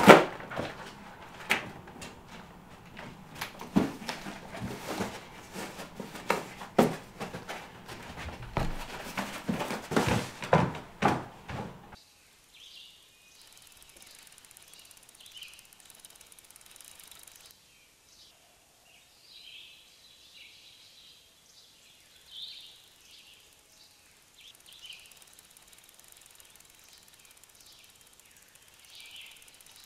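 A cardboard box being handled, hands working at its taped top: a sharp thump at the start, then a string of knocks and rustles for about twelve seconds. After that the sound changes to small birds chirping now and then over a quiet outdoor background.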